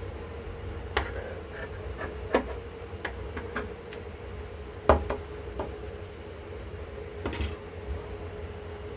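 Shirt fabric being moved and folded by hand on a wooden tabletop: scattered light taps and knocks of hands and cloth against the table, the loudest about five seconds in, over a steady low background hum.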